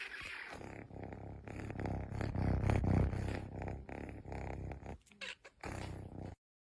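A pet animal's low, pulsing rumble close to the microphone, cutting off suddenly about six seconds in.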